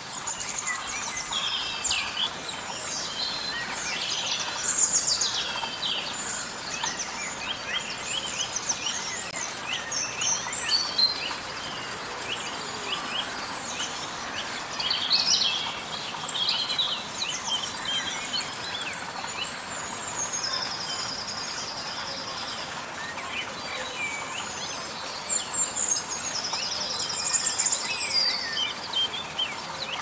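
Several songbirds singing and calling at once: quick chirps, twitters and short sweeping notes throughout, with two long, even trills, one about two-thirds of the way through and one near the end, over a faint steady outdoor hiss.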